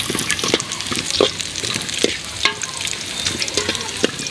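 Metal ladle stirring catfish in an aluminium cooking pot, with irregular clinks and scrapes of metal on metal over a steady hiss.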